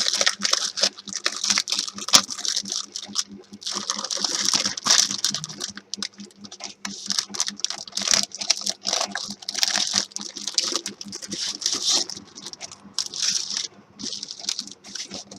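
Paper and plastic packaging rustling and crinkling in quick, irregular crackles as a pack of scrapbooking paper is opened and the sheets are handled and turned over.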